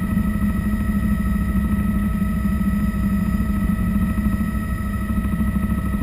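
Bell 206 JetRanger helicopter in flight, heard from inside the cockpit: its turbine and rotor run steadily, a whine at a few pitches over a low rumble.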